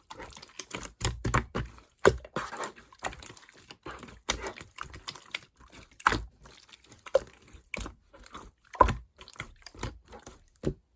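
Clear slime being pressed and stretched by hand, giving irregular sticky clicks and pops, with a sharper, louder pop every second or two.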